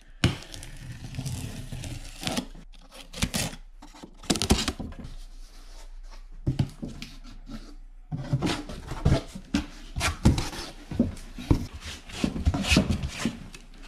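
Cardboard box being opened by hand: packing tape torn along the seam, the flaps scraping and rubbing open, then a wheel in a cloth bag handled inside the box, in irregular scrapes, tears and clicks with short pauses.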